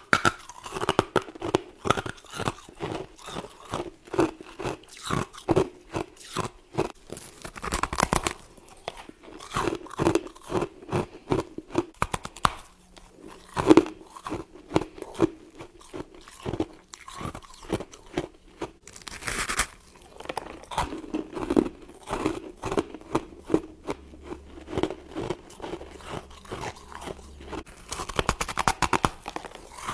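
A person biting and chewing chunks of compacted white frost, a close run of crisp crunches several times a second with a few louder bites along the way.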